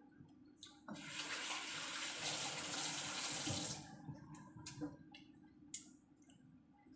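Water running from a tap for about three seconds, starting suddenly about a second in and cutting off near four seconds, followed by a few light knocks.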